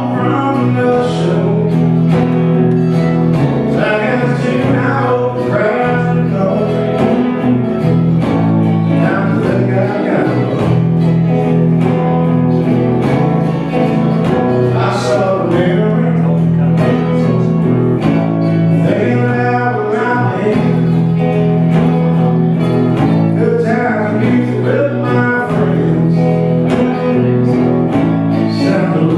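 Live country-style song on an archtop guitar, with low bass notes held for several seconds at a time underneath the busier picked lines.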